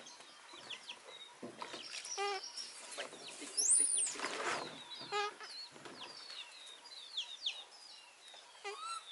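Chickens: chicks peeping in many short, high notes throughout, with a lower chicken call repeated about two, five and nine seconds in. A single high squeal rises and falls just before four seconds in.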